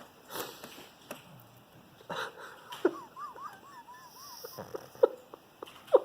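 A pug snoring and snorting in its sleep: noisy wheezy breaths broken by short sharp snorts, with a thin wavering whistle in the middle. This is the noisy breathing typical of a short-nosed dog.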